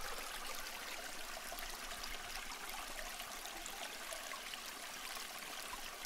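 A steady rushing, water-like noise that cuts in abruptly just before the start and runs on evenly, with a faint low hum beneath it.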